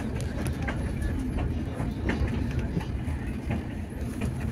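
Tren Patagónico passenger train running along the track, heard from inside the carriage: a steady low rumble with scattered light clicks.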